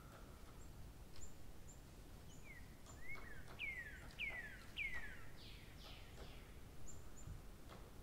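Faint birdsong over a low hiss: a quick run of four or five descending whistles in the middle, with short high chirps scattered before and after.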